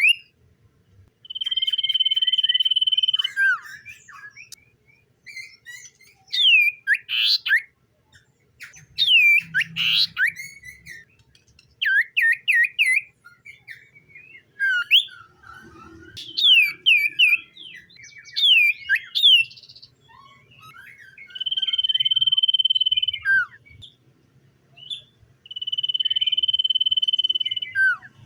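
Common iora singing: three long, level whistles of about two seconds each, each ending in a quick falling note. Between the whistles come runs of quick, sweeping chirps.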